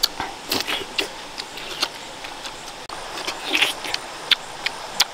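Close-up eating sounds of red dragon fruit: wet chewing and lip smacks, heard as a string of irregular sharp clicks with a few short squelchy bursts.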